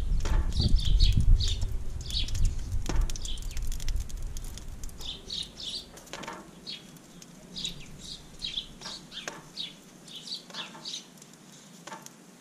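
Small birds chirping repeatedly in the background. A low, gusty rumble is loudest over the first few seconds and then fades, and a few light clicks come as the foil tray of potatoes is handled on the grill grate.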